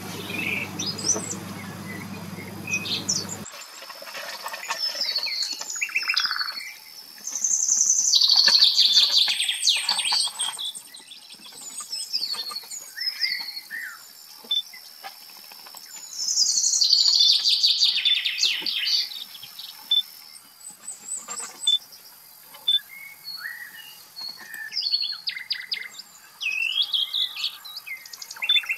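Several birds calling and singing: assorted chirps, whistles and trills, with two loud bursts of rapid, high-pitched song about eight and seventeen seconds in. For the first few seconds a steady low hum and a steady high tone run underneath, then stop abruptly.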